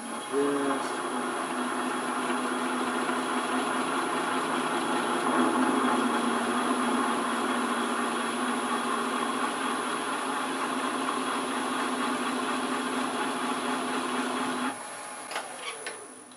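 A handheld texturing tool's cutter pressed into the end grain of a wooden box bottom spinning on a wood lathe: a steady buzzing chatter as it cuts a small swirl texture. It starts suddenly just after the start and stops abruptly near the end, when the tool comes off the wood, followed by a few light clicks.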